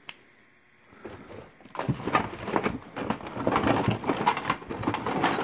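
Hands rummaging through a cardboard box packed with assorted items: rustling, crinkling and knocking, starting about two seconds in after a quiet moment.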